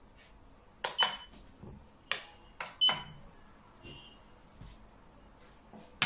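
Xiangqi pieces set down hard on the board as the players move in turn: sharp clacks, several in quick pairs, some with a short ring.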